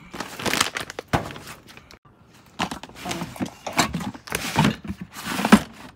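Rummaging noise: a plastic bag and clothes being shifted, then a plastic storage drawer handled and spray cans knocked about inside it. A run of rustles, thunks and clatters, with a short lull about two seconds in.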